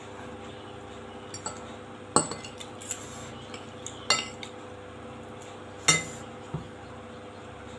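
Metal fork clinking and scraping against a glass plate: three sharp clinks about two seconds apart, with lighter taps in between.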